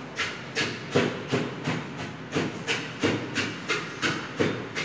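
Chef's knife chopping food on a plastic cutting board: a quick, steady run of knocks, about two to three strokes a second.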